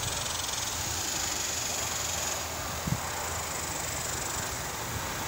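Steady outdoor background noise: a high hiss that fades after about two and a half seconds over a low rumble, with one soft thump about three seconds in.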